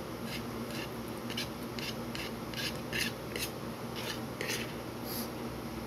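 Metal utensil scraping and scooping fried rice in a bowl: a string of short, raspy scrapes, about two a second.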